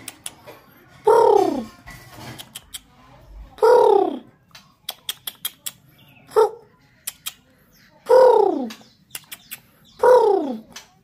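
A bird calling over and over: five loud notes, each sliding down in pitch, about every two to three seconds, with short sharp clicks between them.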